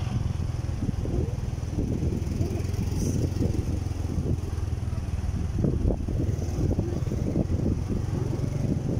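Motorcycle running steadily with a continuous low rumble.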